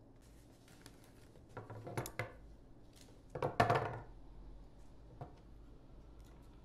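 Clicks and rustles from handling flowers and tools in flower-arranging work, in two short clusters about a second and a half apart, the second louder, then one small click.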